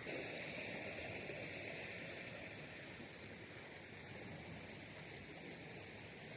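Faint steady outdoor background hiss with no distinct events.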